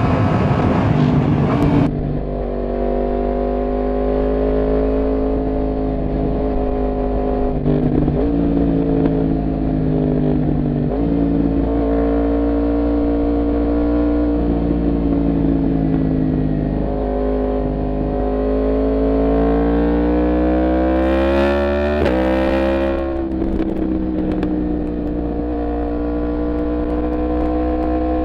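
Yamaha MT-10's crossplane inline-four engine running on the move, its pitch drifting up and down with the throttle. About three-quarters through it revs up, then the pitch drops sharply at a gear change.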